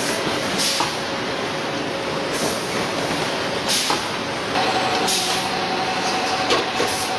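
Core veneer composer machine running steadily, with short bursts of hiss about every one and a half seconds and a steady whine that starts about halfway through.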